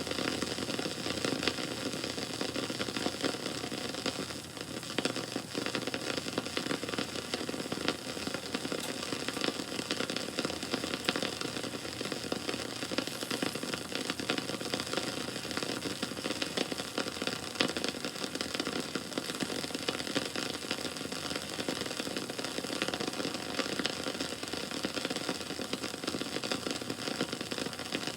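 Wood bonfire crackling steadily: a dense stream of small sharp pops and snaps over a soft hiss of burning.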